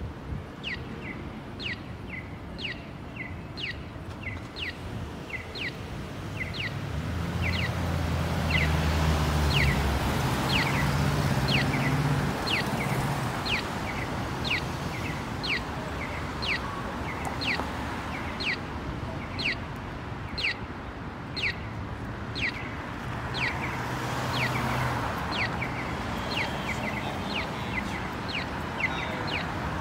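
Crosswalk audible pedestrian signal chirping: short electronic chirps that fall in pitch, repeated about twice a second, the walk indication for pedestrians. Street traffic runs underneath, with a vehicle's engine rumbling louder from about a quarter to nearly halfway through.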